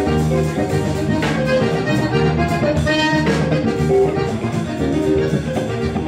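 Instrumental Brazilian jazz played live by a band: piano accordion holding and moving through melody notes over an archtop electric guitar, with bass and drums underneath.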